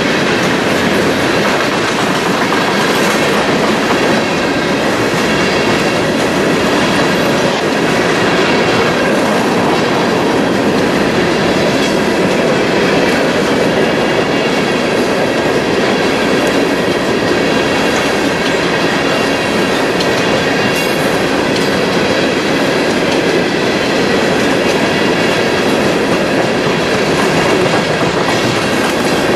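Open-top coal hopper cars of a CSX freight train rolling past at close range: a steady, unbroken rumble of steel wheels on the rail.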